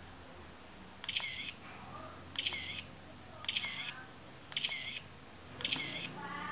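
SJCAM SJ5000X action camera's built-in shutter sound, played five times about once a second as it takes one photo after another in photo mode. Each is a short, high-pitched electronic shutter click.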